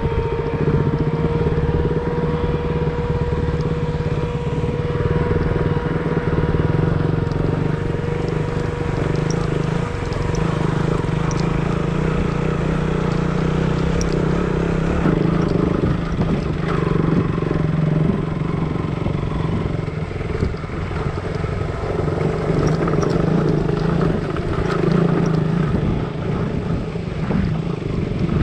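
Motorcycle engine running steadily while riding, with rise and fall in engine sound and road noise throughout.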